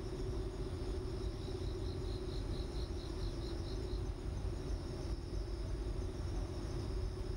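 Insects chirping: a run of evenly spaced high chirps, about five a second, lasting a few seconds, over a steady high trill and a low hum.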